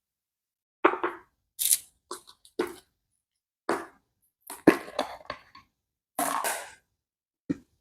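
Kitchen handling sounds: a string of short clatters, knocks and rustles as dishes and food containers are moved about, the sharpest knock near the middle.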